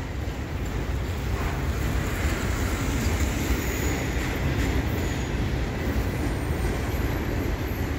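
Autorack cars of a long CN freight train rolling steadily across a steel girder bridge overhead, a continuous noise of wheels on the rails and bridge.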